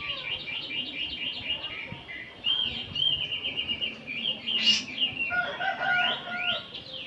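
Several oriental magpie-robins singing at once, overlapping. A fast run of repeated high whistled notes gives way to varied chattering and whistled phrases, louder in the second half.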